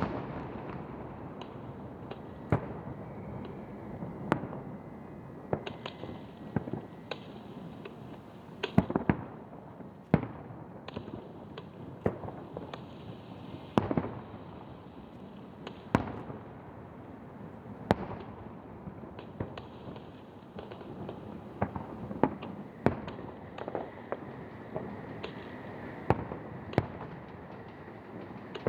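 Aerial fireworks shells bursting over the sea: sharp bangs at irregular intervals, one every second or two, each trailing off in a short echo, over a continuous background rumble of further bursts.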